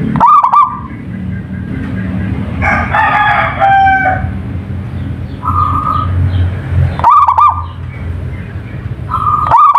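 Zebra dove (perkutut) cooing in short, low, repeated phrases, several times. About three seconds in, another bird gives a longer call with several pitches stacked together.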